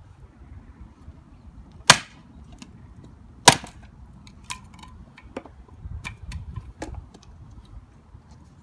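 Two sharp chops of a heavy homemade steel chopper blade biting into a wooden board on a chopping stump, about a second and a half apart, followed by several lighter knocks and taps.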